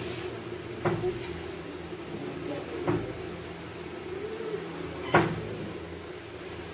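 Crockery knocking three times, sharp short knocks with the loudest about five seconds in, over a steady low hum.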